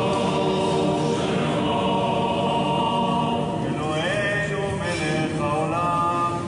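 Men's voices singing a chant together, holding long notes. From about four seconds in, one voice slides between notes above the rest.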